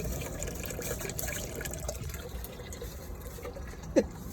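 Vinegar trickling and splashing steadily from a return hose into a bucket as a small pump circulates it through a tankless water heater to descale it. Near the end, one short sharp sound drops in pitch.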